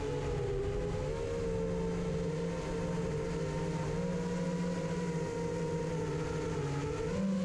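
Steady hum of an FPV racing quadcopter's four DYS 2205 2300KV brushless motors and propellers in cruise, heard from the quad's own onboard camera, wavering slightly in pitch and rising a little near the end as the throttle changes.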